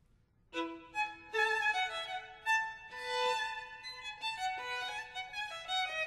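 Background violin music starts about half a second in, after near silence, and plays a melody of held notes.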